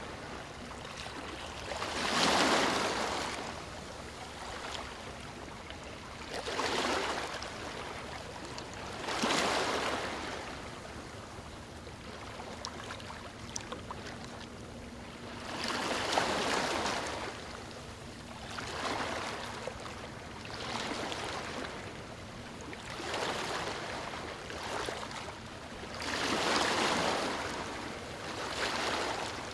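Ocean waves washing ashore: each wave swells and fades, one every two to five seconds, over a steady hiss of surf.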